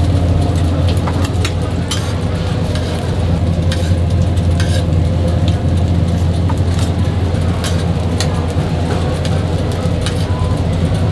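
Food-stall ambience: a steady low hum under a noisy background, with scattered sharp clicks and taps of cooking utensils and faint voices.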